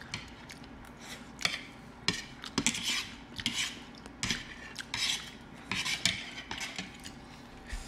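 Chopsticks and a fork clicking and scraping against plates as food is picked up, in irregular short bursts.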